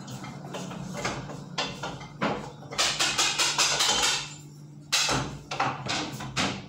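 Cooking-utensil clatter: a spoon knocking and scraping against a pot on the stove, with a quick run of strokes about three seconds in and another cluster near the end. A steady low hum runs underneath.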